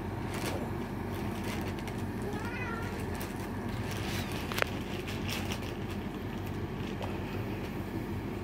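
Newborn British shorthair kitten mewing in thin, wavering cries, calling to be let in to nurse, over a steady low hum. A single sharp click comes about four and a half seconds in.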